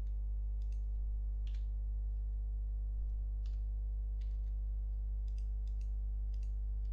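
Faint scattered clicks of a computer mouse and keyboard, about a dozen, over a steady low electrical hum.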